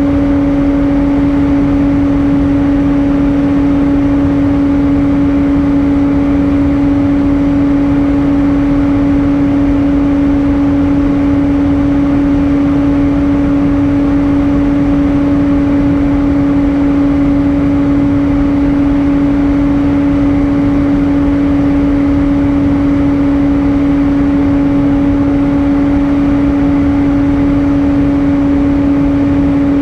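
Cabin noise of an Airbus A320 airliner in cruise flight: a steady rush of air and engine noise with a constant low hum running through it.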